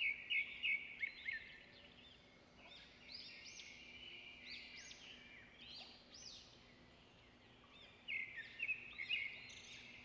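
Birds chirping and trilling in many short calls, with louder clusters at the start and again about eight seconds in, over a faint steady hum.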